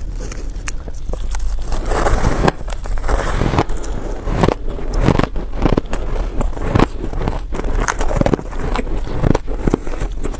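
Close-miked biting and chewing of buckwheat reshaped ice (refrozen shaved ice): dense, irregular crunching with many sharp crackles, over a steady low hum.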